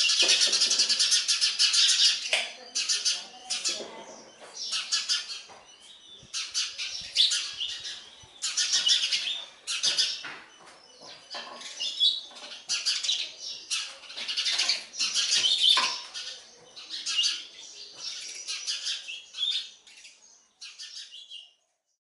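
House sparrows chirping rapidly in repeated bursts of a second or two with short gaps, stopping just before the end.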